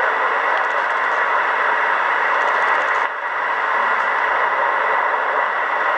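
Steady hiss of static from a Kenwood R-2000 communications receiver's speaker, with no station on the frequency. The hiss dips briefly about halfway through.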